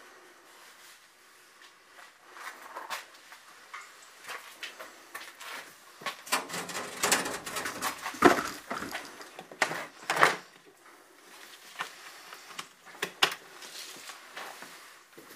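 Hands handling electrical cables and a plastic breaker box: rustling and knocking, busiest in the middle, with two sharp clacks about eight and ten seconds in.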